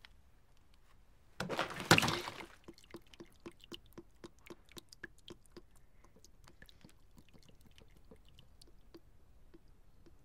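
A plastic water bottle tips over on a hard floor: a short, loud splash as the water gushes out, then a slowing run of drips that fades over a few seconds.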